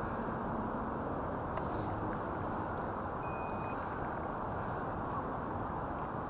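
Steady outdoor background rumble with one short electronic beep, about half a second long, a little over three seconds in, from the RC helicopter's radio transmitter as it is handled.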